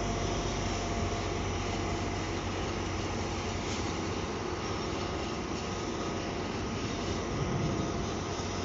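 Diesel locomotive's engine running with a steady drone and a faint steady hum as it hauls a string of flat wagons along the track.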